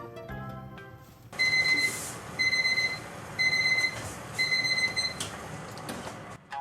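Electronic kitchen beeper going off: four high, even beeps about once a second, over a light steady hiss, as when a timer or appliance signals it has finished. Background music plays briefly at the start.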